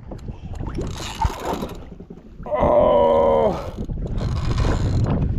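A man's long, strained "oh" about halfway through, over wind buffeting the microphone and bursts of hissing noise.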